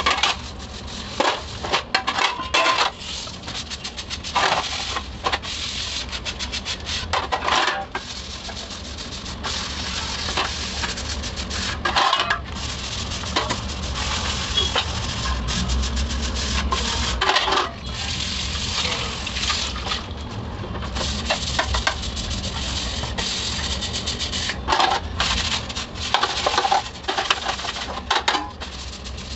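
Stainless steel plates clinking and clattering against each other as they are scrubbed and handled at a sink, with louder clusters of clinks every few seconds. Tap water runs steadily underneath.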